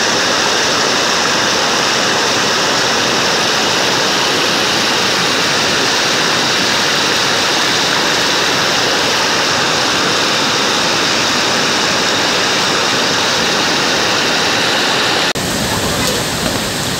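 Torrent of floodwater rushing and pouring over a wall, a steady loud wash of water noise. About 15 seconds in it cuts to a rougher, deeper rush of water running down a flooded lane.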